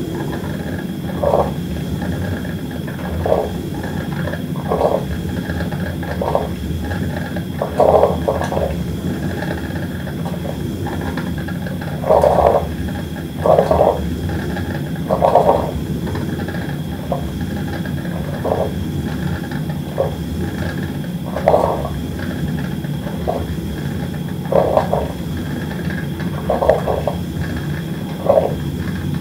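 Coffee maker brewing: a steady low rumble under irregular short gurgling spurts, roughly one every one to two seconds.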